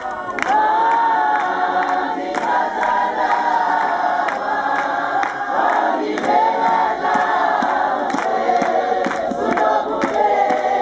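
A crowd of voices singing together without instruments, holding long notes, over steady rhythmic hand-clapping.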